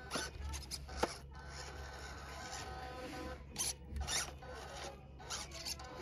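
Small RC crawler's electric motor and gears whining while its tyres scrape and rasp over rough ground, with short louder scrapes about a second in and around four seconds.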